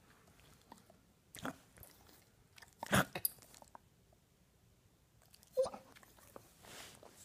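A dog licking and smacking its mouth close up: about four short, separate wet mouth noises with quiet between, the loudest about three seconds in.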